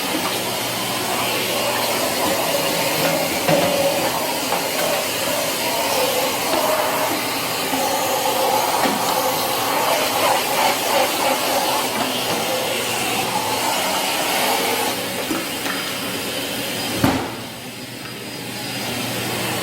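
Electric polishing machine running on a marble countertop, a steady motor whir with grinding hiss from the pad on the stone. About 17 seconds in there is a knock, and the sound drops away, then builds back up.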